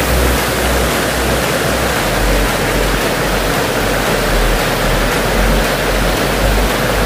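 Steady rushing of flowing water, an even hiss with a low rumble underneath.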